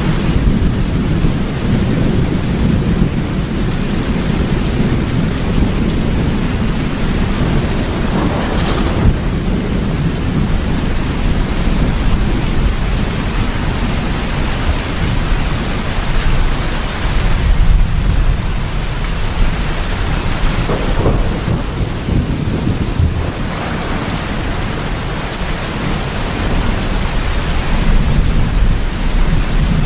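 Steady heavy rain with low rolling thunder rumbling beneath it, the rumble swelling at times and easing off again.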